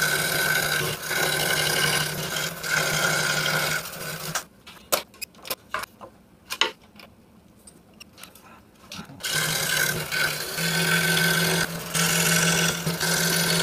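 RBI Hawk 26-inch scroll saw running a 5-0 skip-tooth blade through Baltic birch plywood, a steady motor hum with the rasp of the blade cutting. It stops about four seconds in, several light clicks and knocks follow for about five seconds, then the saw starts again and cuts on.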